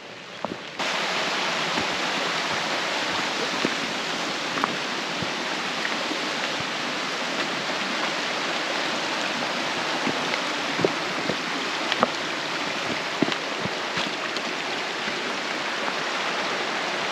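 Creek water rushing steadily, with scattered sharp ticks of raindrops. The rush starts abruptly about a second in.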